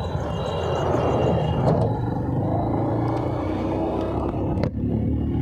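Motorcycle engine running steadily while riding, with road and traffic noise.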